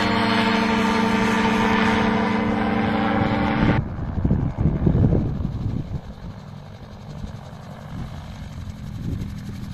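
Nano gyrocopter in flight overhead, its engine and propeller giving a steady buzz with many pitched overtones. About four seconds in the sound cuts off abruptly to a fainter, uneven low rumble that surges and dips.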